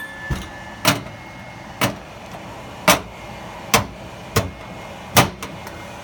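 The vent fan of an over-the-range microwave runs with a steady whoosh while a small lid knocks against the metal vent about once a second, roughly seven times. The suction is too weak to hold the lid up.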